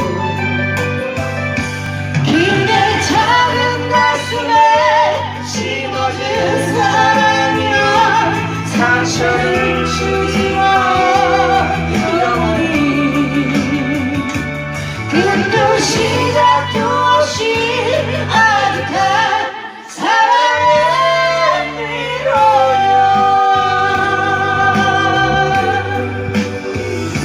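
A person singing with backing music through a Bluetooth karaoke microphone, the voice held in long wavering notes over a steady beat-driven accompaniment, with a brief break about twenty seconds in.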